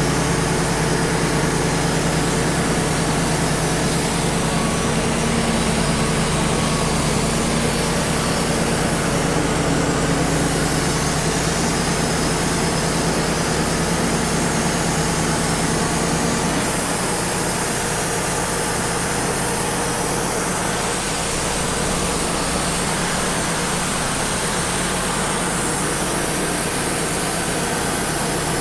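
Wood-Mizer LT35 portable sawmill running steadily. About two-thirds of the way through its note changes, and the lowest tones drop away.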